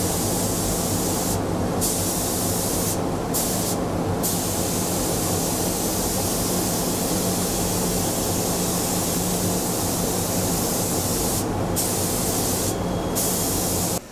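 A loud, steady hiss of rushing air over a low hum. The hiss drops out briefly about five times and cuts off suddenly near the end.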